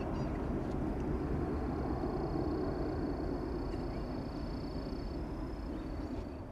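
Steady low rumble of the Airbus A330-300's Rolls-Royce Trent 700 engines as the jet climbs away after takeoff, fading near the end.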